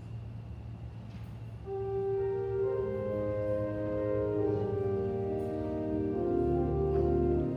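Instrumental recessional music starting about two seconds in, after a faint low hum: slow, sustained chords whose long held notes build up in layers.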